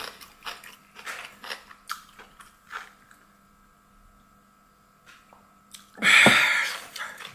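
A person chewing food at the microphone, with small mouth clicks and light crunches over the first few seconds. About six seconds in comes a loud breathy exhale.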